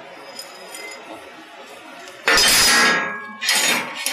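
Steel clanking against steel plate, ringing metallically: one loud clank about two seconds in and a second one about a second later.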